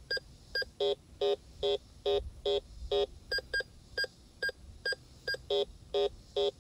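Bounty Hunter Discovery 3300 metal detector giving its target-ID beeps as the coil sweeps over two quarters and a bottle cap: about two short tones a second, switching between high pips and lower, longer tones as it tells the coins from the cap.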